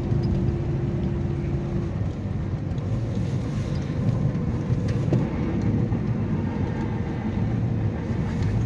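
Steady low rumble of a car driving on a snowy highway, heard from inside the cabin: engine and tyre noise, with a faint steady hum over it in the first couple of seconds.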